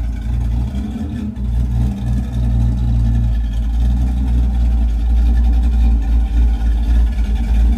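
Box Chevy's engine running steadily, growing a little louder near the end.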